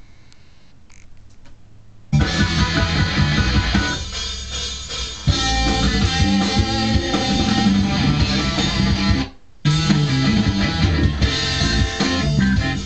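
A rock recording with electric guitar and bass plays back loud from the recording software, starting abruptly about two seconds in after low room sound. It cuts out for a moment about nine seconds in, then resumes.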